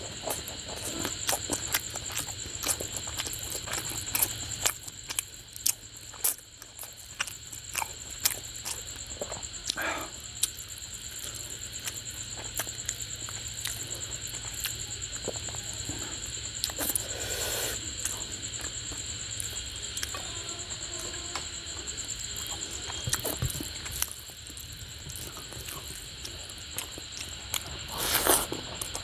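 Close-up eating sounds of rice and fish curry eaten by hand: wet chewing, lip smacks and many small clicks. A steady high-pitched whine runs underneath.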